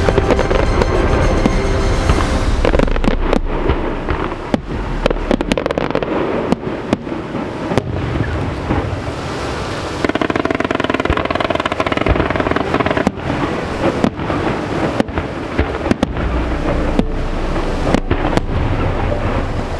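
Temple fireworks going off: a dense run of sharp bangs, several a second, over a continuous din of bursts.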